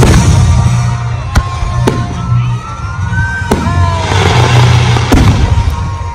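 Aerial fireworks shells bursting: about five sharp bangs spread over a few seconds, with a crackling hiss of sparks in the later part.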